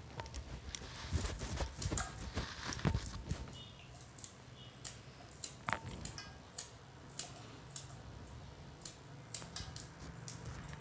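Yardlong beans being cut into small pieces with a small knife held against the thumb: irregular light clicks and snaps, busiest in the first few seconds.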